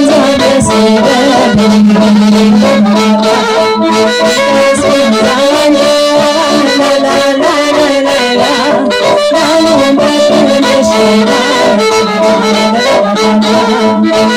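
Instrumental Romanian folk music with sustained, shifting melody notes over a held low note, with no singing.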